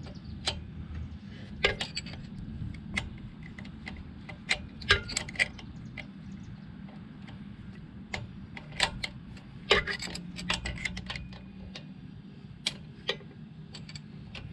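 Wrenches clicking and clinking on a Harley Ironhead Sportster's pushrod adjuster nuts as the pushrod is tightened to take up its up-and-down play. The sharp metal ticks are irregular and come in bunches, the densest about ten seconds in, over a steady low hum.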